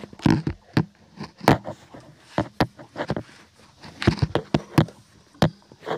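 Irregular sharp clicks and knocks of hand tools on the engine as the bolts of the PCV valve housing are taken out, about fifteen strikes over several seconds.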